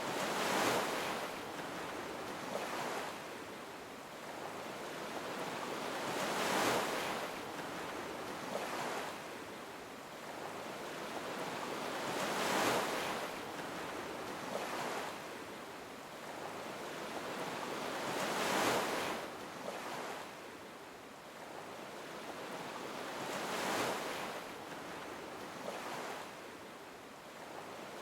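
Ocean surf: waves breaking and washing in, swelling to a peak about every six seconds with smaller surges in between.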